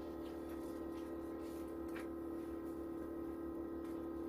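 A machine running in the room gives a steady hum with a constant pitched drone. A few faint clicks sit on top of it.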